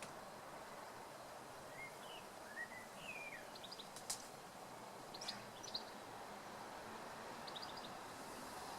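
Steady rush of a beck's running water, with birds calling over it: a few short rising and falling whistles, then bursts of quick high chirps. A single sharp click about four seconds in.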